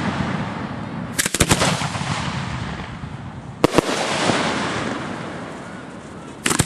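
Fireworks firing from ground racks at close range. A quick volley of several sharp shots comes about a second in, a single shot near the middle and another quick pair just before the end. Each is followed by a rushing noise that slowly dies away.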